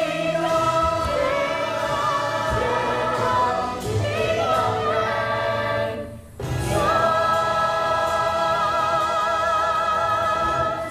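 Musical-theatre cast chorus singing with accompaniment, bringing a song to its finish. There is a short break about six seconds in, then one long held final chord with vibrato on the top voice.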